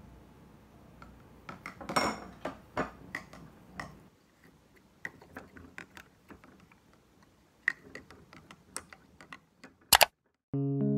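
Clinks and knocks of a glass water bottle with lemon slices being handled and set down on a desk, a loose scatter of sharp clicks, thickest about two seconds in, with a sharp double click near the end. Piano music starts just before the end.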